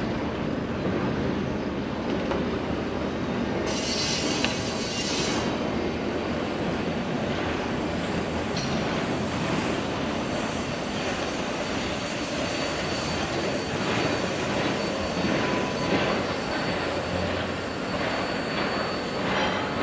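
Freight train rolling past: a steady rumble of steel wheels on rail, with a thin, high wheel squeal that comes in about a third of the way through.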